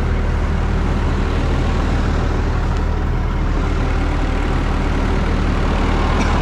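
An engine running steadily with an even low drone, most likely the combine harvester's own engine left running while it is cleaned.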